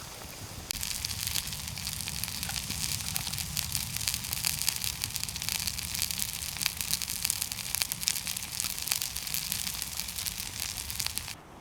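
Fish fingers sizzling and crackling as they fry in a frying pan. The sizzle gets louder about a second in and cuts off abruptly near the end.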